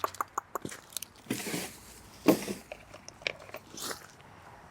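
Plastic used-oil drain container being capped and handled: a quick run of light clicks, then crinkly plastic handling noises with one sharp knock a little over two seconds in.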